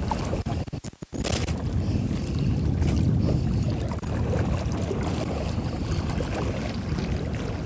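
Wind rumbling on the microphone over open, rippling sea water. There are a few sharp knocks about a second in.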